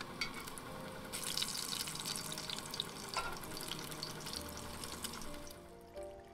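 Bacon sizzling and crackling in a hot cast-iron skillet while the strips are turned with a fork, with one sharp click about three seconds in. The sizzle cuts off near the end.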